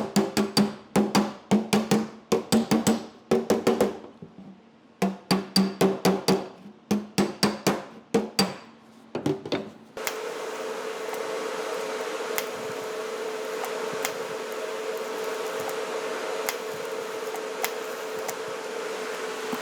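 Hammer-and-dolly planishing on a welded steel body panel, flattening the high TIG welds: quick sharp strikes about five a second with the sheet metal ringing, a brief pause, then the hammering stops about halfway through. A steady machine hum with a faint ticking follows.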